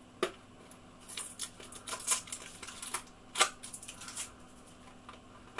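A small cardboard box being cut and prised open with a blade: irregular light clicks, taps and scrapes, the sharpest near the start and about three and a half seconds in.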